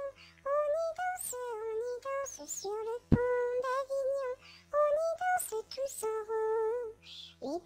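A high, childlike singing voice sings short phrases of a nursery-song melody, with brief pauses between phrases.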